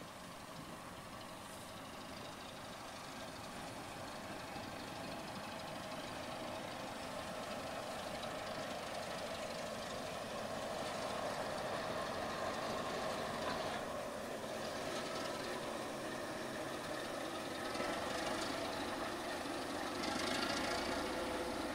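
British Rail Class 09 diesel shunter's engine running as it hauls a rake of coaches slowly past, growing steadily louder as it approaches.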